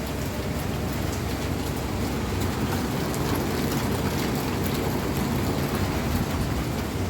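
Heavy rain falling steadily: a dense, even hiss with a low rumble underneath and scattered fine drop ticks.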